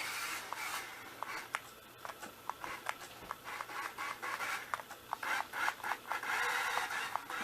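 Toy remote-control car running across the floor: its tyres and body scrape and rub, with many irregular small clicks and ticks, and the scraping grows louder in stretches later on.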